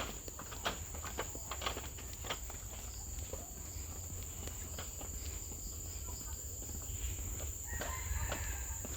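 A steady, high-pitched drone of forest insects, with footsteps on the trail in the first few seconds.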